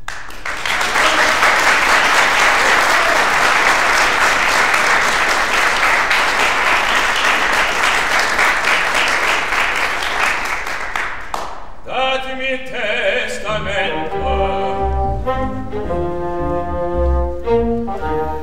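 Audience applauding steadily for about eleven seconds, then cutting off as the opera orchestra starts playing again, with brass and a heavy bass line.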